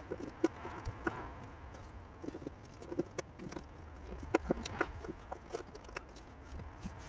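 Irregular light clicks and knocks of metal parts and hand tools while a bonnet latch is bolted into place by hand.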